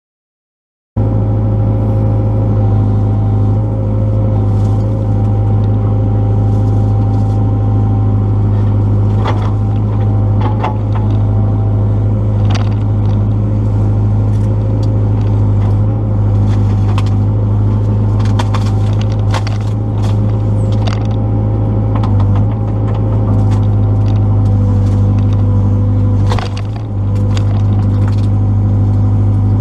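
Excavator's diesel engine running steadily under load, starting abruptly about a second in, with scattered sharp knocks and clanks over it and a brief dip in engine level near the end.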